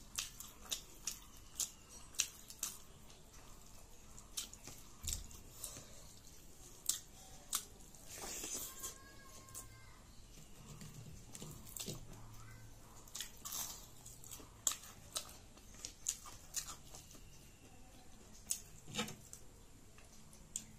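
A person chewing and biting crisp fried food close to the microphone, with many sharp crunches scattered throughout and a longer crackly stretch about eight seconds in.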